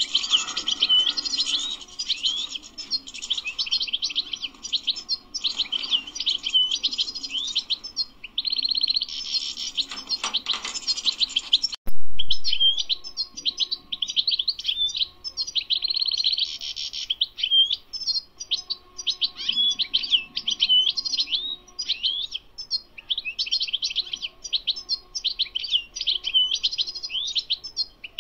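European goldfinch song: a long, fast run of twittering, trilling phrases with barely a pause. A sharp click cuts in about twelve seconds in, at a brief break in the song.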